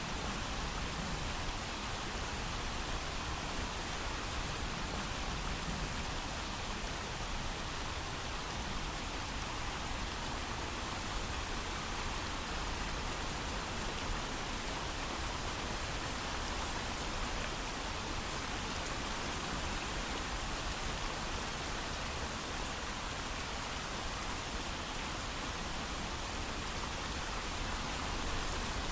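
Steady heavy rain falling, an even hiss of drops with no thunder.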